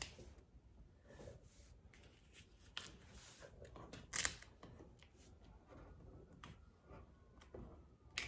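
Faint rustling and small clicks of vinyl wrap film being handled and pressed in by hand, with a sharper snap about four seconds in.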